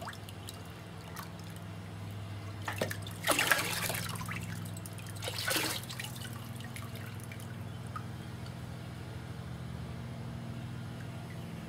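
Water in a plastic tub sloshing and splashing as a welding mask is dipped into it and lifted back out, in two bursts about three and five seconds in, over a steady low hum.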